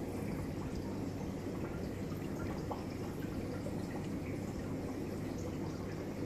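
Steady aquarium water noise: water trickling and bubbling from the tank's filter, with faint scattered drips and ticks.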